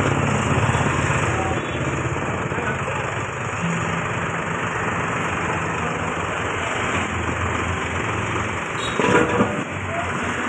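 Mahindra tractor's diesel engine running steadily while it works its front loader, the bucket down and pushing along the dirt. There is a brief louder clatter about nine seconds in.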